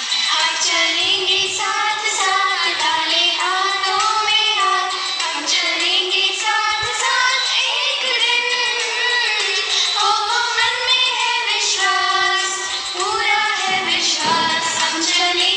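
A woman singing a prayer song unaccompanied, one voice in slow, held notes that bend and glide between pitches.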